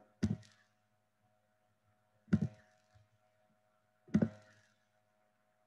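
Three short, sharp clicks about two seconds apart, thunky and close to the microphone, typical of a computer mouse being clicked while ending a screen share. A faint steady electrical hum sits underneath.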